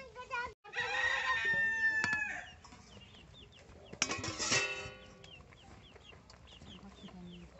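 A rooster crowing, a long drawn-out call about a second in, then another loud call around four seconds in. Short falling chirps repeat in the background.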